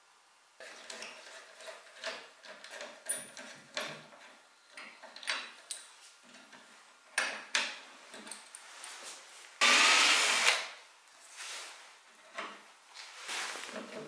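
Hand work on a wooden rocking-chair rocker while a metal repair plate is fitted across its break: a run of scrapes, taps and clicks of a tool against wood and metal, with one loud burst of noise lasting about a second about ten seconds in.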